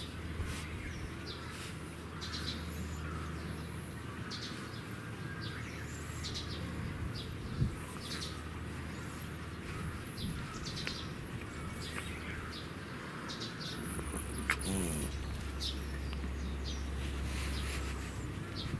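Small birds chirping, many short high chirps scattered through the whole stretch over a steady outdoor background, with two brief knocks, one a little before halfway and one later on.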